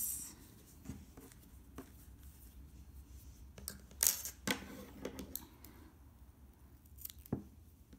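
Light handling of crocheted yarn and fabric with scattered small clicks, then a pair of scissors picked up and snipping the yarn end after it has been woven in. The loudest clicks come about four seconds in.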